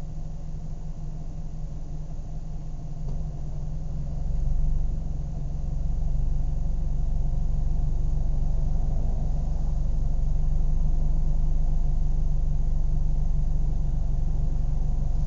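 Car engine idling with a steady low rumble. About three to five seconds in it revs up, with a brief peak, then settles into a louder, steady run for the rest.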